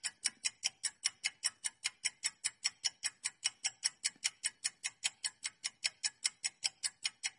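Quiz countdown-timer sound effect: fast, even clock-like ticking, about five ticks a second.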